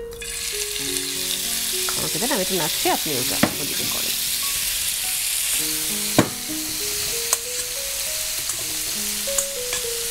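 Beef sizzling as it is stir-fried in a hot pan, with a spatula scraping and knocking against the pan a few times.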